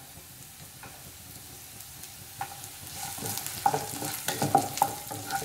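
Chopped green beans and garlic sizzling in hot oil in a nonstick pan on high flame. The sizzle is faint at first, then from about three seconds in a wooden spatula stirs and scrapes through them and the frying grows louder.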